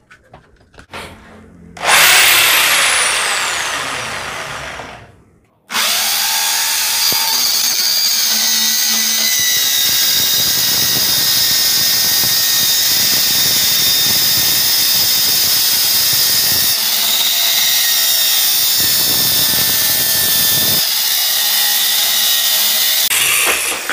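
A few clicks as a bar clamp is tightened. Then a corded drill driving a circular-saw attachment runs in a short burst about two seconds in and winds down. It starts again and runs steadily for most of the clip while the blade cuts through 18 mm plywood, stopping just before the end. The drill turns the blade at only about 2800 RPM and vibrates heavily, so the cut comes out wavy.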